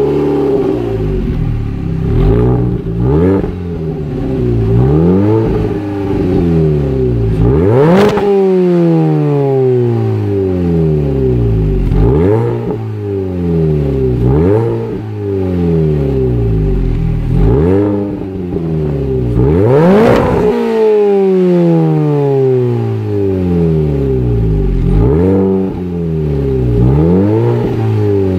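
Mini Cooper S's supercharged 1.6-litre four-cylinder through a Direnza 2.5-inch cat-back exhaust and sport cat manifold, revved repeatedly at standstill: the revs shoot up sharply then fall away, over and over, with two bigger revs about eight and twenty seconds in.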